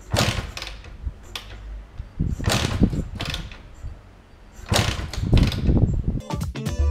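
Two-stroke engine of a Montesa 260 trial bike being kick-started: several hard kicks about two seconds apart, each spinning the engine over briefly without it catching and running. Music comes in near the end.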